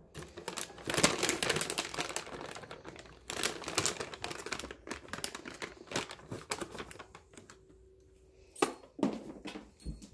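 Rustling and irregular clicking of a phone being handled close against clothing and hair, busiest in the first half and thinning out toward the end.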